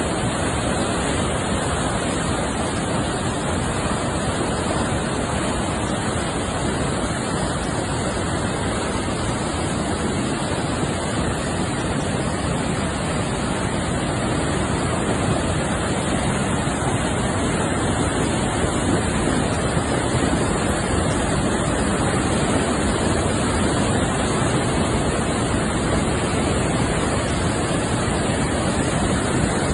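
Swollen mountain river in flood, rushing past in a steady, unbroken torrent of water noise.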